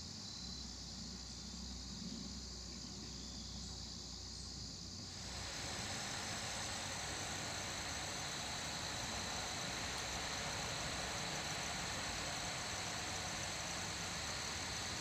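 Steady insect chorus, a continuous high trill, over a broad even hiss of outdoor background noise. Both get louder about five seconds in, and a low hum underneath drops away at the same time.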